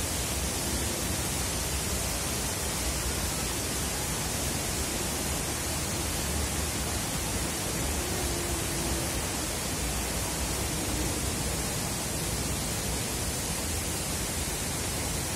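Steady rush of an artificial waterfall pouring down a rock face into a pond.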